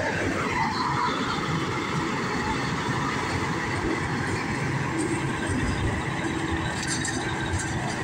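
Steady drone of a forage harvester chopping silage corn, mixed with the engine of a silage truck. A whine falls in pitch during the first second.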